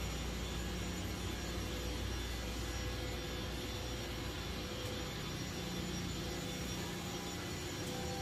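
Steady hum and rushing background noise of a workshop floor, with a low drone and a faint steady tone running through it.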